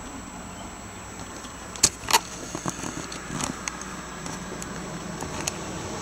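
Two sharp clicks a fraction of a second apart, then lighter scattered clicking and rattling, over a steady background hiss.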